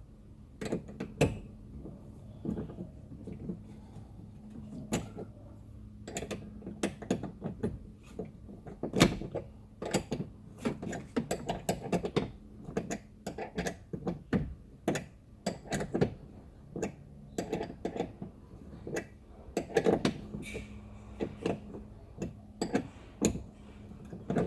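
A T50 Torx wrench tightening a seatbelt anchor bolt into the car's B-pillar: many irregular clicks and knocks of the tool working on metal and plastic, over a faint steady hum.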